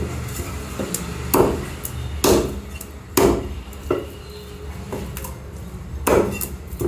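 Heavy meat cleaver chopping through chicken onto a thick wooden log chopping block: several solid chops about a second apart, a pause of about two seconds, then more chops near the end, over a steady low hum.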